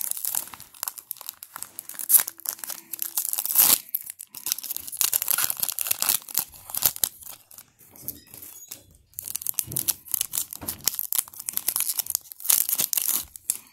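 Plastic wrapper of a 2021-22 Panini Prizm Basketball card pack being torn open and crinkled by hand. It makes a run of irregular crackling tears and crinkles, with two brief lulls, about a third and two-thirds of the way through.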